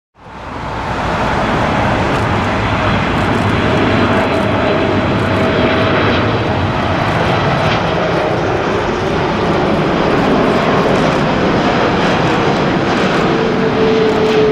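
Boeing 747 four-engine jet airliner on final approach, its engines giving a loud, steady roar with a faint whine that slides slightly lower. The sound fades in over the first second.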